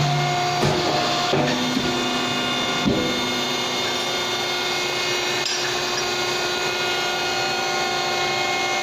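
TD-876 tube-shrinking machine running with a steady motor hum. A few knocks and clicks come over it in the first three seconds, and one more about halfway through, as a formed tube is taken out of the tooling.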